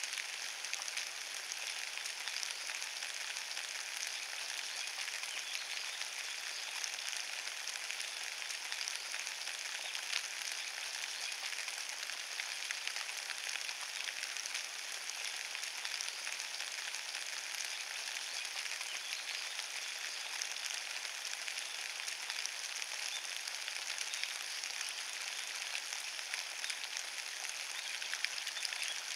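Steady rain falling on a carpet of fallen leaves: an even hiss with many small drop taps throughout.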